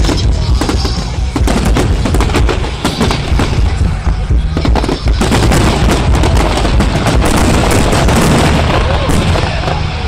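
Fireworks display going off in a dense run of bangs and crackles, with music and crowd voices underneath.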